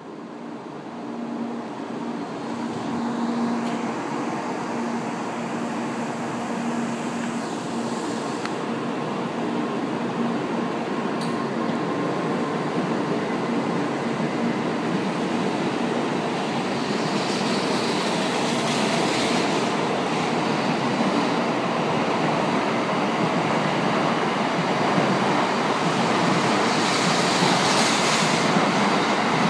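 Shinkansen bullet train pulling out of a station platform and accelerating, its running noise growing steadily louder. A low steady hum in the first few seconds gives way to a building rush of wheel and air noise as the cars speed past.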